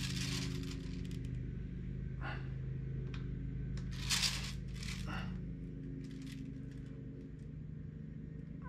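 Distant lawnmower engines running as a steady low hum. Over it come a few short scrapes and clicks of hands and a knife working the clay figure, the loudest about four seconds in.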